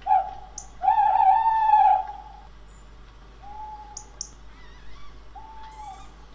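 Tawny owls calling: a short hoot, then a long, wavering male hoot about a second in, followed by fainter, shorter hoots every couple of seconds. A few brief, sharp high notes sound over them.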